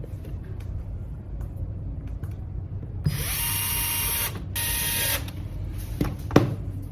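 Small cordless electric screwdriver running in two short spins with a brief break between them, driving in the screws of a battery cover. Two sharp knocks follow near the end.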